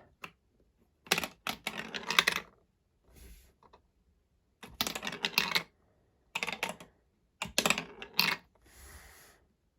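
Marbles and plastic marble-run trap pieces clicking and clacking as they are handled, in four quick clusters of clicks with short pauses between them.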